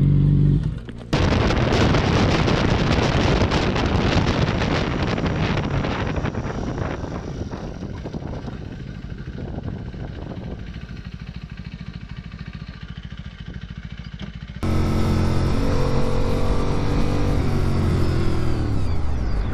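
Motorcycles riding: a loud rushing noise of wind and road on the rider's microphone, easing off over several seconds. Then, abruptly, a sport bike's engine running at steady revs, its pitch dropping near the end as the bike slows.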